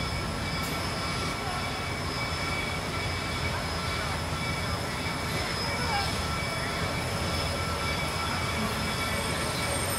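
Reading T1 No. 2102, a 4-8-4 steam locomotive, rolling slowly past: a steady low rumble with a thin, steady high squeal over it.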